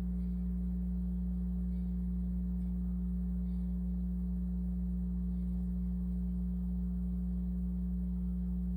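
A steady low hum that does not change, with faint scattered bird chirps over it.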